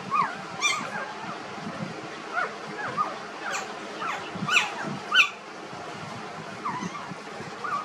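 Newborn puppies squeaking and whimpering in short, high cries that rise and fall, a dozen or so scattered through, the loudest about five seconds in.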